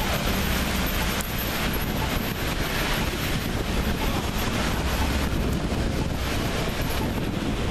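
Steady outdoor street noise: wind on the microphone over the rumble of passing traffic.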